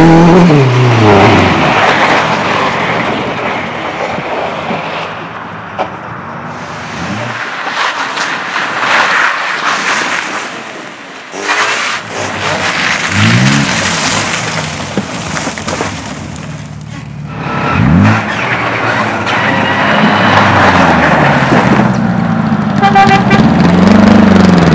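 Race cars driven hard past the track one after another, engines revving and falling in pitch as each goes by, over a constant rush of tyre and engine noise.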